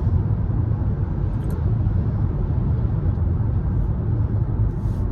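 Steady low rumble of a car driving, road and engine noise heard inside the cabin.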